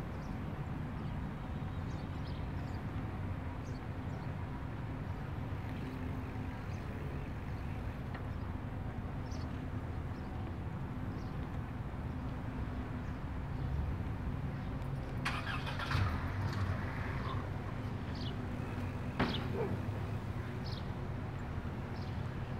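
Bicycle ride ambience: a steady low rumble of the ride and nearby road traffic, with scattered small clicks. A short hissing clatter comes about two-thirds of the way in, followed a few seconds later by one sharp click.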